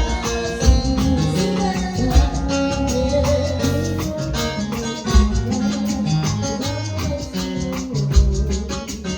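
Music with a steady beat, bass and shaker-like percussion.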